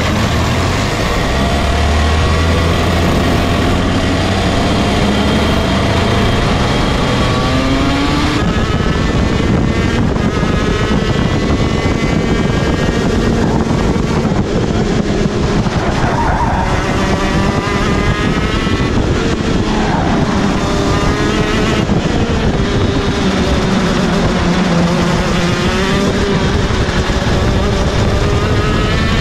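TM R1 125cc two-stroke engine of a KZ2 gearbox kart, heard onboard. It runs at lower, steadier revs for the first several seconds, then climbs in pitch again and again as it accelerates through the gears, dropping back at each shift and under braking.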